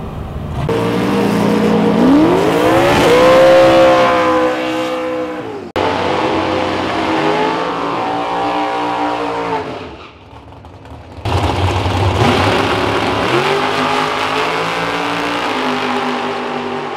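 Drag-racing cars' engines revving hard, the pitch climbing steeply and then holding at high rpm. The sound comes in several edited sections with abrupt breaks, one about six seconds in and a quieter dip around ten to eleven seconds in.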